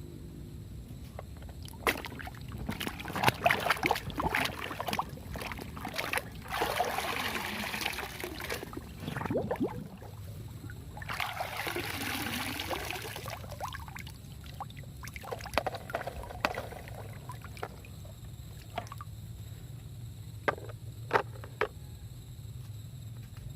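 Water splashing and pouring in a few rushes of a second or two while plastic toy trucks are washed, with scattered clicks and knocks between them.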